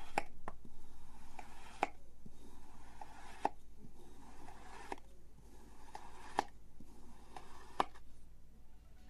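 A few faint, sharp clicks or taps, roughly one every second and a half, over quiet room noise.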